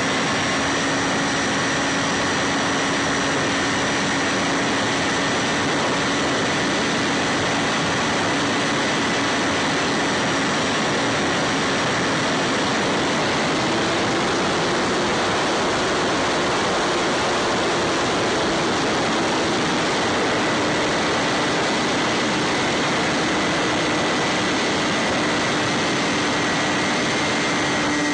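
Bixler 3 foam RC plane's electric motor and pusher propeller running steadily in flight, heard from its onboard camera under heavy wind rush. The motor's pitch rises a little about halfway through and then eases back.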